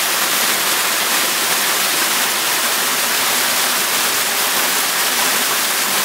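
Steady rushing splash of water pouring from a swimming pool's artificial waterfall.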